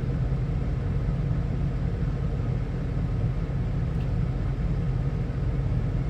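Tractor engine running steadily, a low even rumble.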